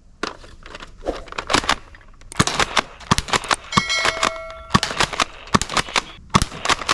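Plastic toy guns being handled: a quick, irregular series of sharp clicks and clacks, with a brief metallic ring near the middle.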